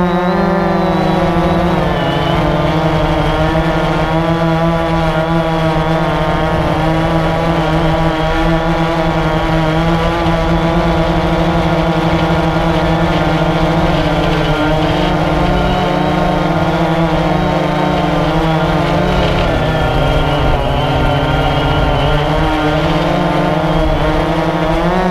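AirDog quadcopter's electric motors and propellers, heard close up from the GoPro it carries: a loud, steady, pitched hum with several layers. Its pitch drops a little about two seconds in and shifts again near the end.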